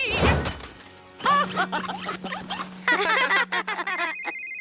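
Cartoon soundtrack: a whoosh, then music with squeaky, warbling character sounds over a steady low drone. Near the end a phone starts ringing with a repeated high electronic beep.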